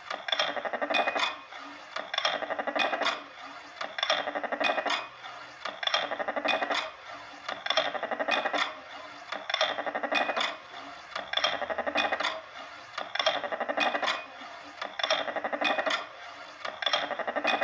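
Amplified homemade metal sound box (a Klangkasten of springs, rods and a ball on a metal tray) rattling and clinking metallically. The sound comes in repeating swells, each fading away, about every two seconds.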